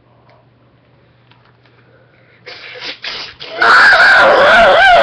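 A boy screaming into a webcam microphone. It starts about two and a half seconds in and becomes very loud about a second later, its pitch wavering.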